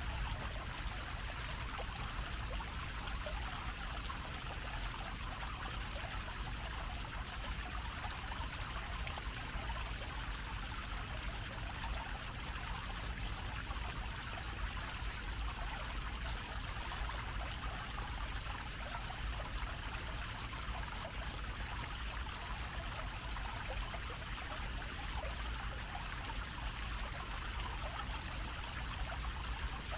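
A bell-shaped fountain jet splashing steadily onto its grated basin, with a low rumble underneath.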